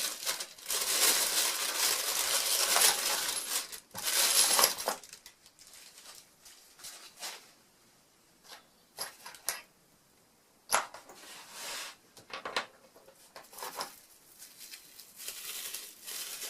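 Plastic packaging rustling and crinkling for about five seconds, then scattered light clicks and knocks of small tools and parts being handled and set down.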